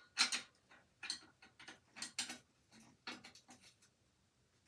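A small wrench and other metal tools clicking and clinking as they are handled and packed into a carry kit, in irregular clatters that die away about a second before the end.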